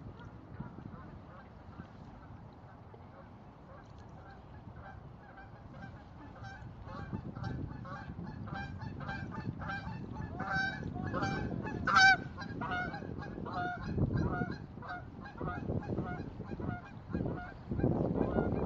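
A flock of geese honking: many short calls, faint at first, growing louder to a peak about twelve seconds in, then fading. Low rushing noise comes in near the end.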